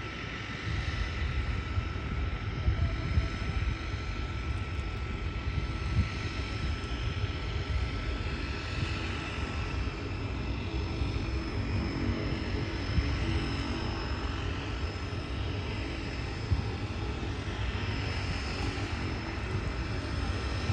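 Turboprop engine of a de Havilland floatplane running steadily at low taxiing power, a steady rumble with a thin, even whine on top.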